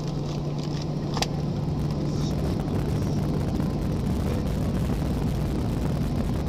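Airliner cabin noise while taxiing: a steady low hum and rumble from inside the cabin, with one sharp click about a second in.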